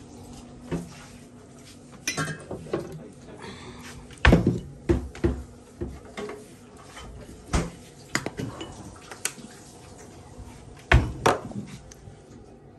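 Kitchen clatter: dishes and cutlery clinking and irregular knocks of things set down on a counter and a drawer being handled. The two loudest knocks come about four seconds in and near the end.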